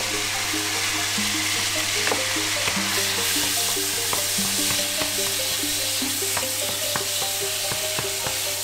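Crumbled tofu sizzling in hot oil in a frying pan, its moisture still cooking off, while a wooden spatula stirs it with light clicks and scrapes against the pan. Background music plays underneath.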